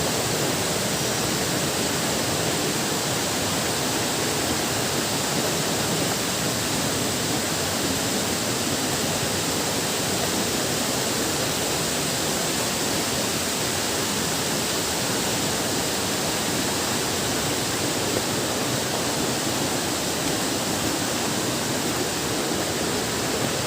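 Tall waterfall's falling water making a steady, even rush that does not let up.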